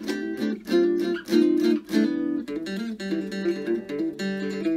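Closing music: a guitar strumming chords in a quick, even rhythm, about three strokes a second.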